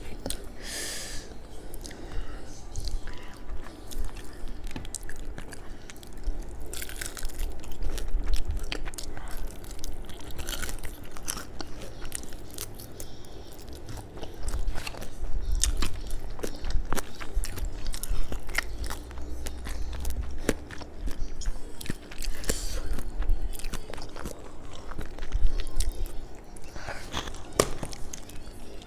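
A person chewing and biting crispy fried chicken (McDonald's ayam goreng), with many scattered crackles of the fried coating between the chews.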